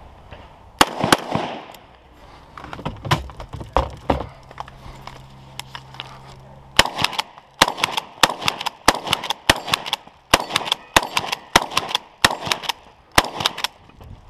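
Gunfire: two loud rifle shots about a second in, a few lighter shots, then from about seven seconds in a fast string of shotgun shots, roughly two to three a second, fired at a steel plate rack.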